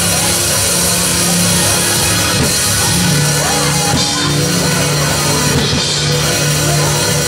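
Live church band playing loud, driving music: drum kit with crashing cymbals over held keyboard notes.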